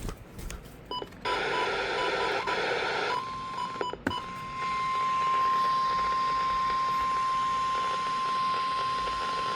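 Weather radio alert: a few short beeps and about two seconds of buzzy data noise, then from about four and a half seconds in a steady single-pitched alarm tone, the NOAA Weather Radio 1050 Hz warning tone that signals an urgent warning broadcast.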